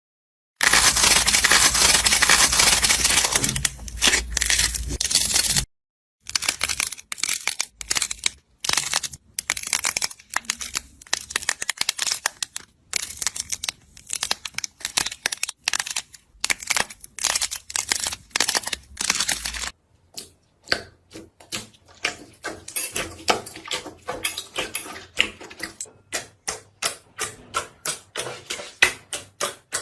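Slime being squished and poked by hand, full of crackling and popping. It opens with a few seconds of dense crackling, turns to irregular sharp pops and crackles, and near the end becomes a quick run of clicks, several a second.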